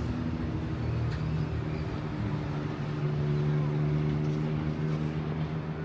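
A steady, low motor drone holding a few pitches, a little stronger from about three seconds in.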